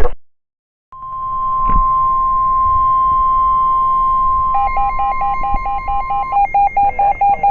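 NOAA Weather Radio 1050 Hz warning alarm tone: after a moment of silence, one steady loud tone lasting about five seconds, announcing a severe thunderstorm warning. About four and a half seconds in, rapid beeping that alternates between two pitches, about five beeps a second, joins the tone and keeps going after the tone stops.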